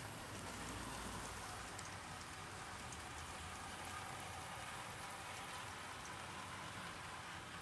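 OO gauge model trains running on the layout: a faint, steady rolling hiss of wheels on rail, with occasional light clicks.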